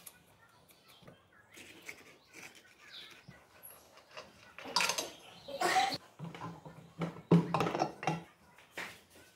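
Metal clanks, knocks and scrapes as the rear wheel rim of a Honda Dio scooter is worked off the engine's rear hub and handled on the bench, with the loudest knocks about halfway through and again near the end.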